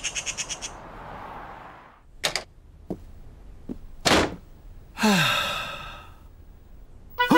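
Cartoon sound effects: a bird's wings flapping, fading out within the first second. Then a few soft clicks and a thunk about four seconds in, and a man's voice giving a low, falling, contented sigh. A chiming jingle starts right at the end.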